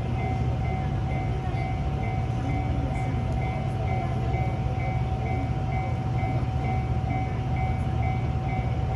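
Japanese railway level crossing's electronic warning bell ringing in even, repeating strokes, over a steady low rumble.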